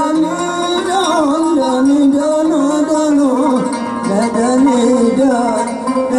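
Yemeni dan music on oud: a single melody line sliding and wavering without a break, over short plucked low notes.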